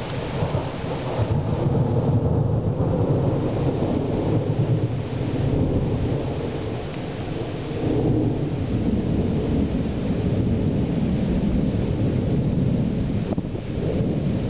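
Long rolling thunder: a low, deep rumble that swells over the first couple of seconds and keeps rumbling unbroken, with a second swell about eight seconds in.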